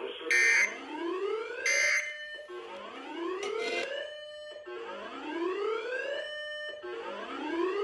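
Electronic alarm tone: two short loud beeps in the first two seconds, then a whooping tone whose pitch sweeps upward over about a second and a half, repeating roughly every two seconds.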